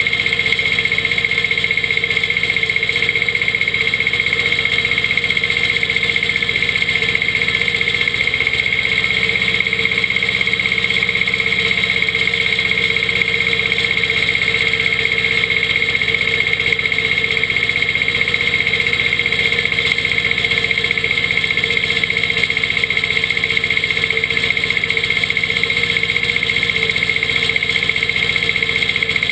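Yanmar 2210B compact tractor's diesel engine running steadily under load while driving a PZ CM 135 drum mower through standing hay, with a steady high whine over the engine.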